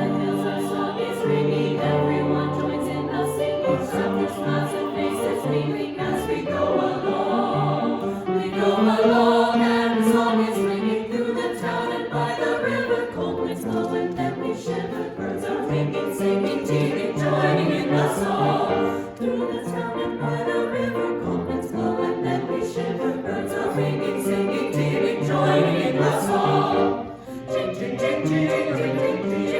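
A choir singing with instrumental accompaniment.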